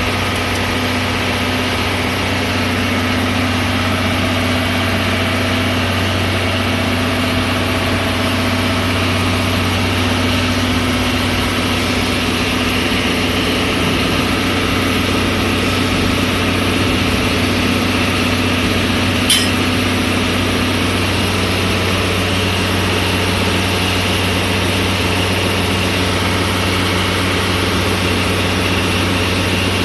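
DE10 diesel-hydraulic locomotive's V12 diesel engine idling with a steady low hum. There is a single short, sharp click a little past the middle.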